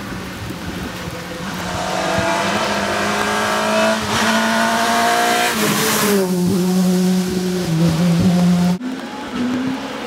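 Škoda Fabia S2000 rally car's 2.0-litre four-cylinder engine revving hard as it approaches, its note rising, then dropping as it passes at speed with a rush of gravel and water spray, and changing gear as it pulls away. The sound breaks off abruptly near the end, and an engine note is heard again after it.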